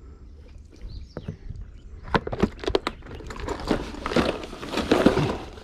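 Hands rummaging in a backpack and handling a plastic tackle box: a busy run of clicks, knocks and rustling that starts about two seconds in.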